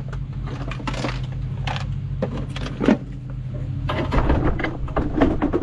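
Scattered metal clinks and clanks of tools and tractor parts being handled, with a sharp clank about three seconds in and a busier run of clatter near the end, over a steady low hum.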